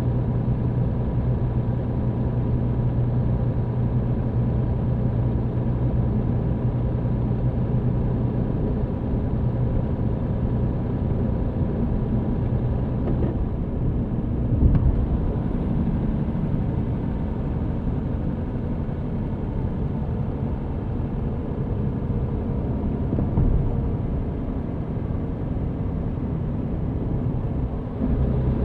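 MAN TGX truck's diesel engine and road noise heard from inside the cab while driving: a steady, low drone. About halfway through its note changes, with a single knock at the same time.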